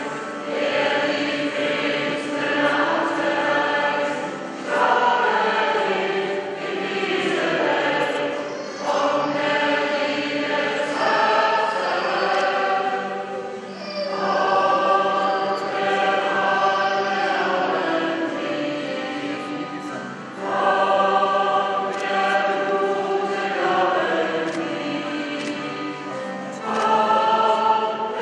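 Church choir singing in long held phrases of several seconds each, swelling and easing between phrases.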